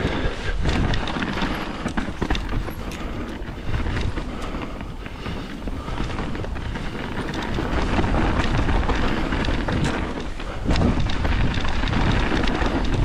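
Mountain bike being ridden down a dirt trail: tyres rolling over the ground, wind rushing over the microphone, and scattered knocks and rattles from the bike over bumps. It grows louder about eight seconds in and again near the end.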